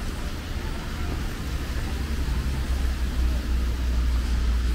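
City road traffic: a steady low rumble of passing vehicles over an even hiss, getting slightly louder toward the end.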